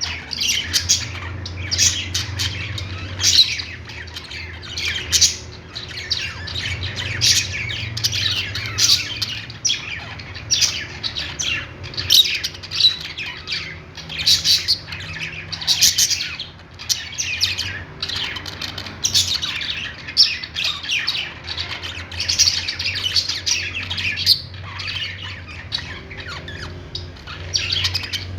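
A flock of small pet parrots chirping and squawking nonstop, many short overlapping calls, over a steady low hum.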